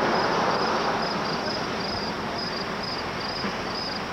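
Crickets chirping in a steady rhythm, about three high chirps a second, over a constant background hiss.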